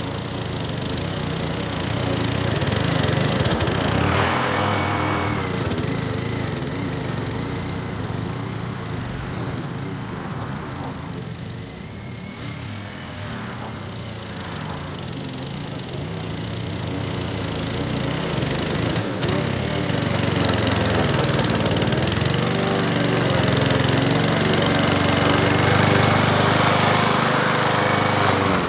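Powersmart 21-inch walk-behind mower's 144cc single-cylinder engine running steadily under load while mulching tall, wet Bermuda grass. It fades somewhat in the middle and is loudest near the end as the mower comes close.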